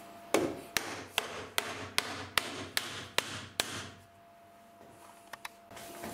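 Machine vise being cranked tight on a mild steel block: a run of about nine sharp metallic clicks, evenly spaced at roughly two and a half a second, which then stop, followed by a couple of faint ticks near the end.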